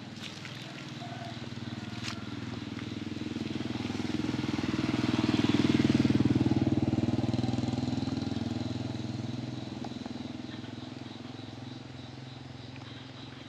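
A motorcycle passing by on a nearby road: its engine grows louder over several seconds, is loudest about halfway through, then fades away.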